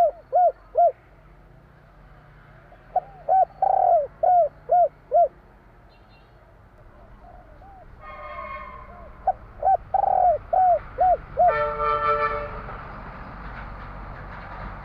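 Spotted dove (tekukur) cooing in phrases of the three-note 'kuk 3' type: a short note, a longer rolling coo, then a run of short clipped coos, repeated three times. Twice, about eight and twelve seconds in, a short harsh tone with many overtones cuts in.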